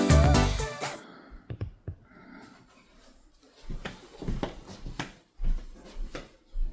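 Background pop music that stops about a second in, followed by faint scattered knocks and low thumps in a small room.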